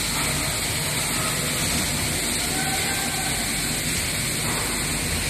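Steady factory machinery noise from a sheet-metal production line: an even mechanical hum and hiss with a few faint held tones.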